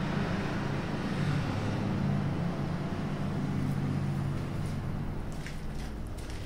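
A steady low mechanical hum and rumble that eases slightly over the last two seconds, with a few faint clicks near the end.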